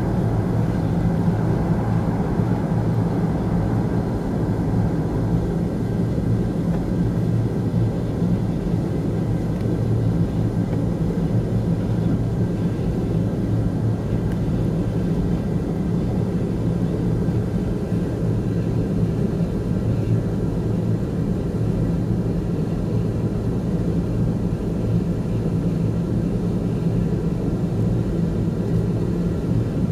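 Steady drone of a Boeing 747-200's engines at taxi power, heard inside the passenger cabin. It is a low, even hum with a few held tones and no spool-up.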